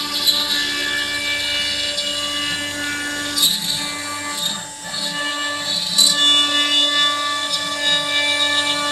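CNC router spindle running with a steady whine as its bit mills solid ash wood, with short louder moments about three and a half and six seconds in and a brief dip near the middle.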